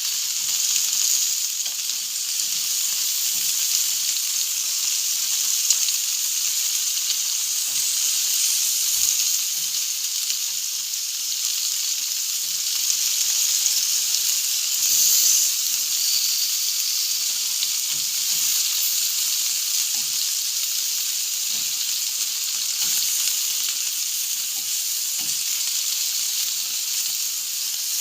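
Food sizzling on a barbecue grill: a steady high hiss with scattered small crackles and pops, briefly swelling a little louder about halfway through.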